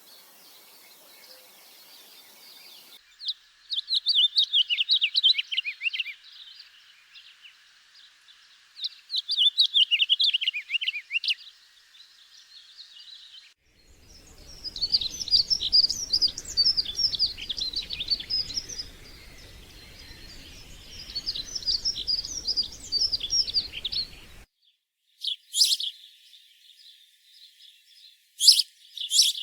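Small songbirds singing in bursts of rapid, twittering phrases of quickly falling notes, each burst lasting a couple of seconds. Near the end come a few short, sharp calls.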